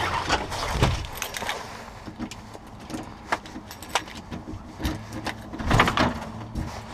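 A bunch of keys jangling while a key is pushed into a door knob's lock and turned, with sharp metallic clicks; the loudest burst of jangling and clicking comes near the end.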